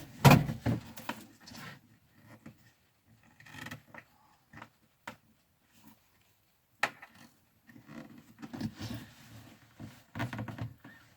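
Handling noise as a hose is worked and pushed into a small hole: two loud knocks at the start, scattered light clicks, one sharp click about seven seconds in, then rustling and rubbing.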